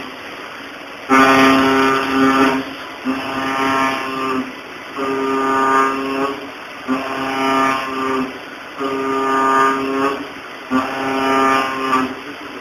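CNC vertical machining center milling 1018 steel with a carbide-insert cutter at a fast feed: each cutting pass gives a steady pitched tone, about six passes roughly two seconds apart with short breaks between them.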